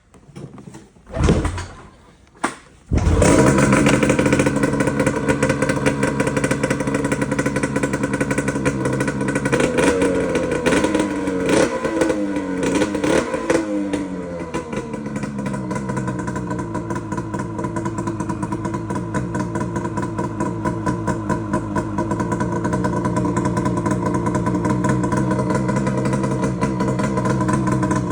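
Arctic Cat M800 snowmobile's 800 cc twin-cylinder two-stroke engine, run without its muffler, starting after two short attempts about three seconds in. It runs fast at first, is blipped up and down for a few seconds, then settles to a steady idle.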